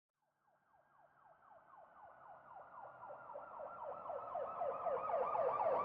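Police siren in a fast yelp: rapid falling wails, about four a second. It starts faint about half a second in and grows steadily louder.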